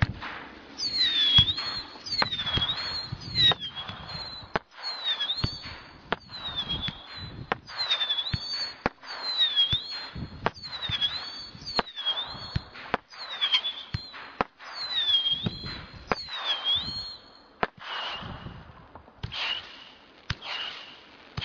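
Brightstar 'Dynasty' multi-shot firework going off: a rapid run of sharp bangs mixed with whistling shots, roughly one a second. Each whistle dips in pitch and then rises, and toward the end the whistles hold a steadier pitch.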